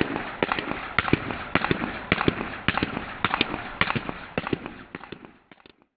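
Bubble wrap popping under airsoft BB impacts: sharp pops in quick succession, often in close pairs about twice a second, growing fainter and dying away near the end.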